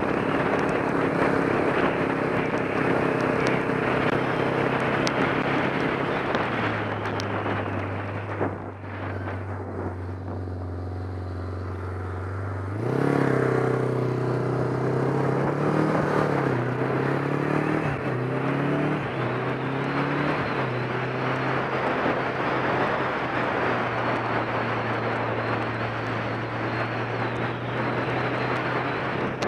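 Motorcycle engine under way: running steadily, then dropping to a lower, quieter drone about seven seconds in, as when slowing or idling. About thirteen seconds in it accelerates, the pitch climbing in steps broken by gear changes, then settles into steady cruising.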